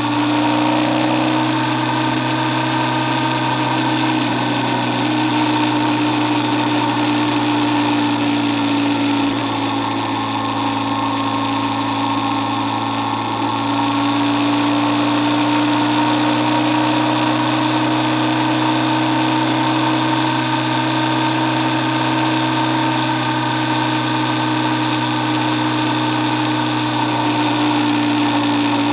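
Motorcycle cruising at steady highway speed, heard from a camera mounted on the bike: a steady engine drone and whine with wind rush. The pitch sags a little about a third of the way in and rises again.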